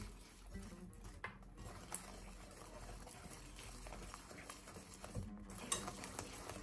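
Wire whisk beating a thick, creamy batter in a ceramic bowl: a quick, uneven patter of the wires tapping and scraping against the bowl, with one sharper knock near the end.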